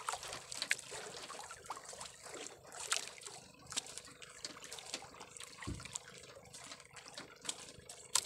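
Seawater lapping and splashing against the side of a small boat, with irregular trickles and drips, over a faint steady hum.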